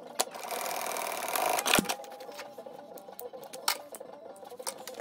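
Industrial sewing machine stitching grosgrain binding onto a fabric edge in a burst of about a second and a half, stopping with a sharp click, over the steady hum of the machine. A few single clicks follow.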